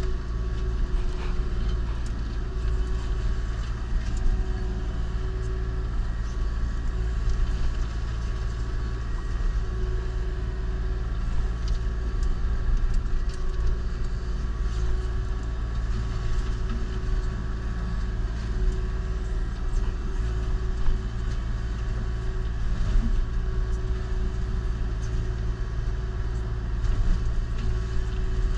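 Kubota KX040-4 mini excavator's diesel engine and hydraulics running steadily, driving an Indeco forestry mulcher head, with one tone that swells and fades and scattered light ticks.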